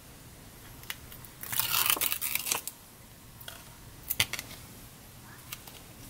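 Protective backing being peeled off double-sided foam tape: a rasping peel lasting about a second, with a few light clicks and taps of paper and card being handled.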